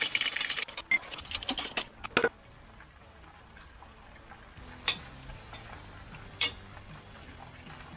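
Metal parts clattering and clinking on a shop press bed as a freshly pressed-out lower ball joint is handled: about two seconds of rapid clicking and rattling, then two sharp single metallic clinks about five and six and a half seconds in as the ball joint is set down.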